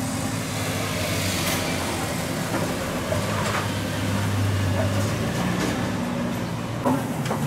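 A steady low mechanical hum of a running motor, with a faint background haze and a few light clicks.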